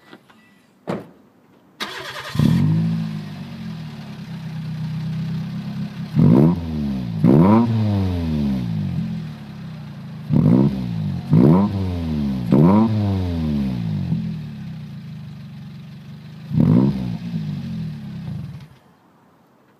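Toyota Vitz SCP10's 1.0-litre four-cylinder engine through an aftermarket muffler. It starts about two seconds in, idles, is blipped six times in quick rises and falls of revs, then is switched off shortly before the end.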